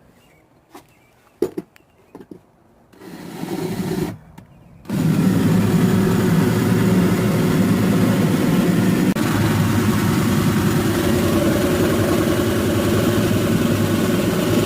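Vehicle engine being started: a few faint clicks, a short cranking sound about three seconds in, then the engine catches about five seconds in and runs steadily at idle.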